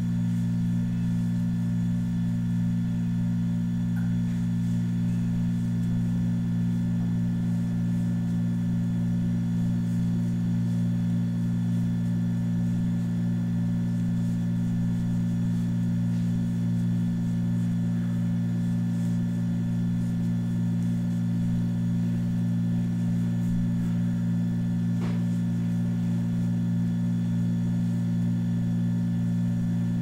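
A steady low drone of several held tones that never changes in pitch or loudness, like a sustained background music chord. Small faint ticks now and then.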